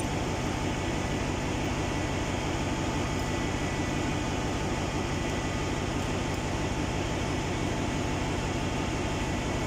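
Steady drone of running ship's engine-room machinery and ventilation, with a few faint steady tones in it and no distinct tool strikes.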